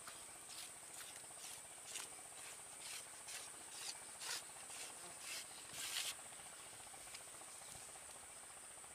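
Faint steady high-pitched drone of swamp insects, with a run of short scraping rustles about every half second through the first six seconds, the loudest near the end of that run, then only the insects.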